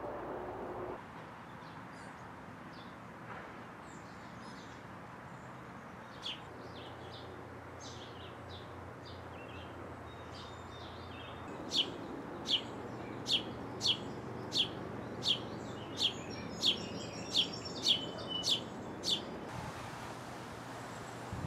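Small songbirds chirping outdoors: faint scattered chirps, then a run of about a dozen short, evenly spaced chirps over roughly seven seconds, about one every 0.6 s.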